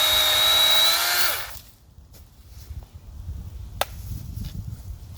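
Chainsaw running flat out with a steady high whine, released about a second in and winding down quickly. After that there is only a low rumble and one sharp knock.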